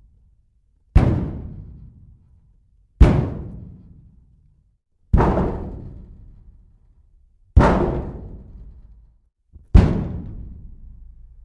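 Five heavy slams against metal, about two seconds apart, each with a deep ring that dies away over a second or two. A faint tap comes just before the last one.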